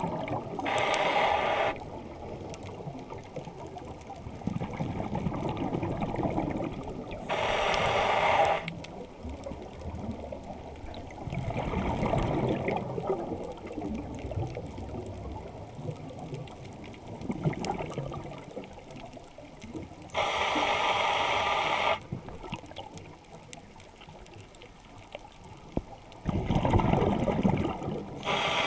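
Scuba diver breathing through a regulator, heard underwater through a camera housing: a few sharp-edged breath bursts of a second or two each, several seconds apart, with rumbling, bubbling exhaust between them.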